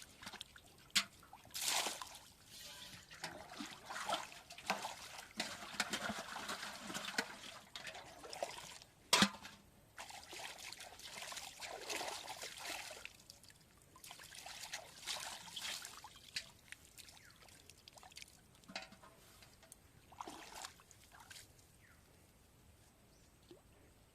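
Water trickling and pouring in irregular spells, with scattered clicks and one sharp knock about nine seconds in.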